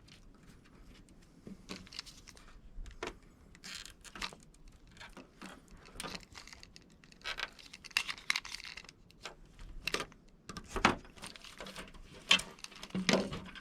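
Screen roller tool pressing rubber spline into a window screen frame's channel over new screen mesh: irregular clicks, scrapes and rustles as the tool and mesh are worked.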